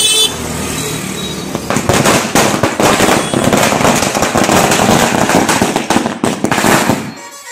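A string of firecrackers going off: a rapid, unbroken crackle of sharp bangs that starts about two seconds in, runs for about five seconds, and stops just before the end.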